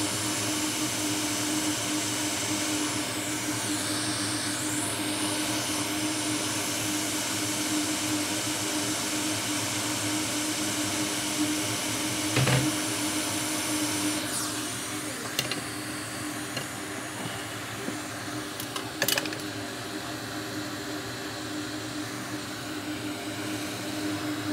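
Solder fume extractor fan running steadily, a continuous rush with a steady hum, easing slightly about halfway through. A few light clicks and taps come in the second half.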